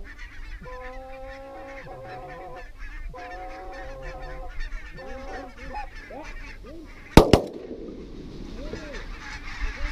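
Geese honking, then about seven seconds in two shotgun shots fired in quick succession, with the bang ringing on briefly; the geese go on calling afterwards.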